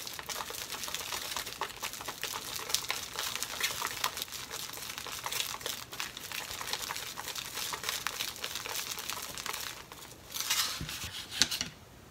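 Wooden chopsticks whipping natto fast in its white foam tray: a rapid run of scratchy clicks and crinkling against the container. The stirring stops near the end, followed by a couple of louder knocks as things are set down on the counter.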